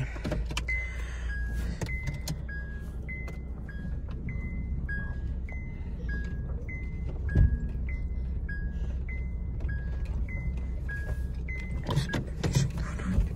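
Two-tone reverse warning beeper in a Honda Civic, alternating high and low beeps about every half second for some eleven seconds while the car backs up, over the low hum of the idling engine. A single thump about seven seconds in.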